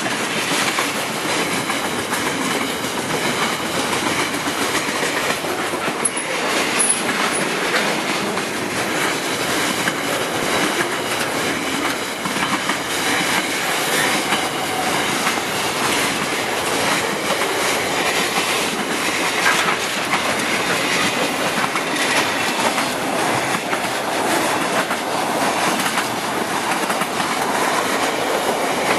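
Container freight train's wagons rolling past close by, a steady rumble of steel wheels on rail with a continuous clickety-clack of wheels over the rail joints.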